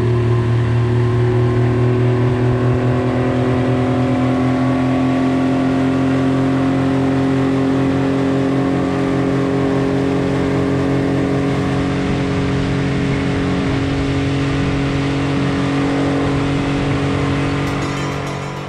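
Outboard motor on a small inflatable speedboat running at a steady speed, its note holding even, then fading out near the end.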